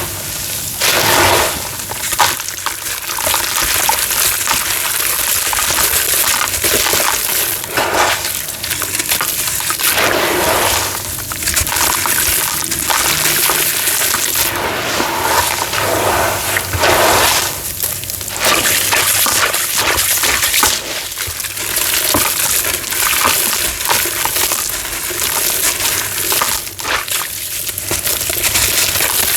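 Brittle homemade cement being crushed and crumbled: a continuous gritty crunching and crackling, dense with small snaps and falling grit, swelling in louder surges every few seconds.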